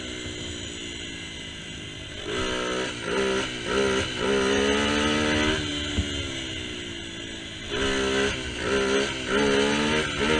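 Honda XR100 single-cylinder four-stroke dirt bike engine, fitted with a new carburettor and an open cold air intake, being revved up and down. It runs low for the first couple of seconds, then goes through two spells of quick rising and falling revs with a lower stretch between them.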